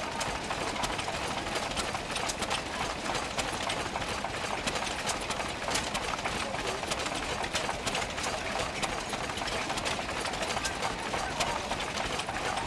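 Small vintage single-cylinder hopper-cooled stationary engine running steadily, its flywheel turning, giving a steady train of firing beats and clicks.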